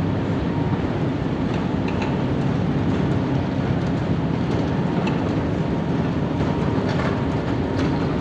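Steady rushing of water falling down the Cascade's stepped fountains, an even, unbroken noise, with a few faint ticks over it.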